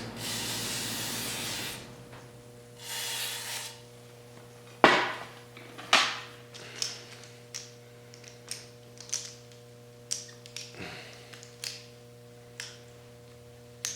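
Aerosol can of WD-40 spraying in two hissing bursts, a long one of about two seconds and a short one around three seconds in, onto the engine block's cylinder walls. Then a couple of sharp knocks and a string of light clicks from handling the can and tools, over a faint steady hum.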